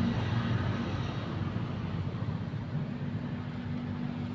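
A steady, low engine drone from an unseen motor, easing off slightly in level.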